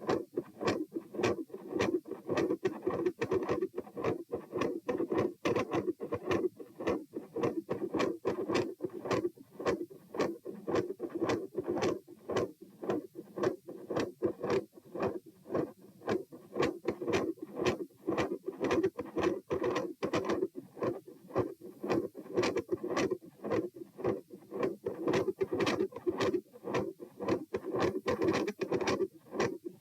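Human heart sounds recorded at the pulmonic listening point: regular beats as sharp repeated clicks, with a continuous machinery-like murmur running through both heart sounds and between them, which the recorder likens to a PDA murmur.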